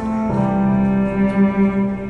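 Slow instrumental music of long held bowed-string notes with piano, moving to a new note about a third of a second in.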